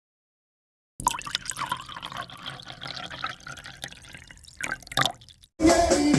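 Irregular light clicks and small taps, like dripping, for a few seconds, then reggae music starts loudly near the end.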